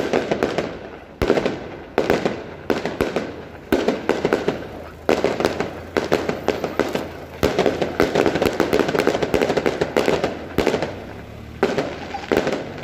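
Daytime fireworks going off in rapid volleys of cracking bangs. A fresh, louder barrage breaks out every second or two, with a brief lull shortly before the end.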